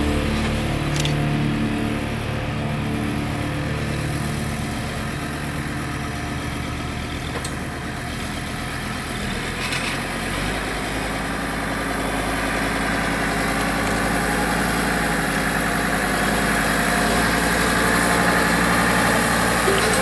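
Kubota farm tractor's diesel engine running steadily as it drives across stubble with a large square straw bale on its loader spear, growing louder toward the end as it comes closer.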